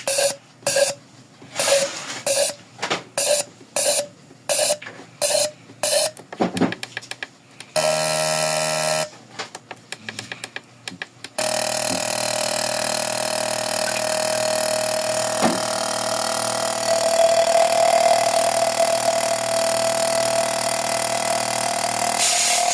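Fuel injector test bench working a Suzuki Celerio injector: short pulsed clicks about twice a second for six seconds, a brief steady tone around eight seconds, then continuous buzzing spray with a steady hiss from about eleven seconds on.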